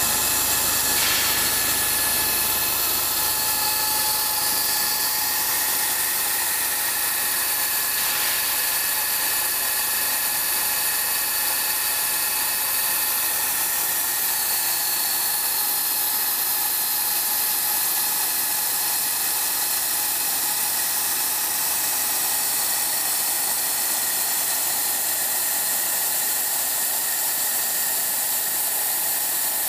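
Large face-milling cutter on a double-column milling machine cutting a metal workpiece: a steady hissing machining noise with a couple of steady high-pitched tones from the spindle and cutter.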